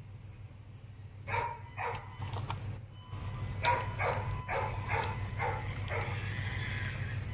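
A dog barking repeatedly, about two barks a second, starting about a second in, over a steady low hum.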